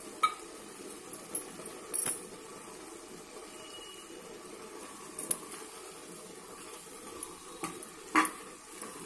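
Mushroom curry simmering in an aluminium pressure-cooker pot, a steady bubbling sizzle, with a few light clicks and a louder knock about eight seconds in as a spatula strikes the pot.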